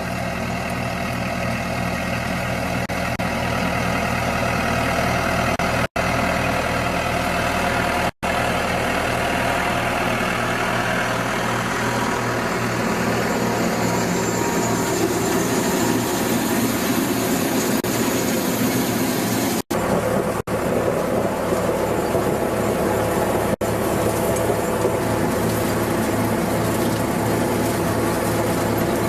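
MP-3000SP potato harvester running steadily, its engine and machinery making a continuous mechanical drone. The sound drops out briefly several times.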